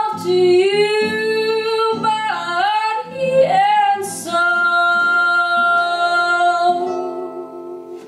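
A woman singing the closing phrase of a slow ballad over a strummed steel-string acoustic guitar, her voice gliding between notes and then holding one long final note from about four seconds in. The voice and guitar fade away near the end as the song finishes.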